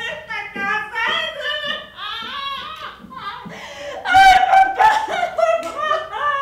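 A woman's voice giving high-pitched, wordless wailing cries, loudest about four seconds in.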